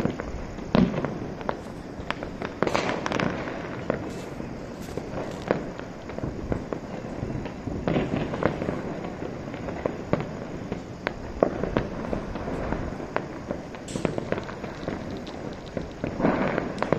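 Distant firecrackers and fireworks going off across a city: irregular sharp bangs and pops, each trailing a short echo, over a constant din of many more far-off crackers.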